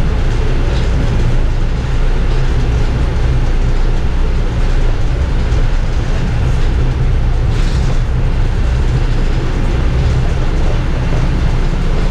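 Steady low rumble of a transit bus's engine and road noise heard from inside the cabin, with a couple of faint clicks or rattles.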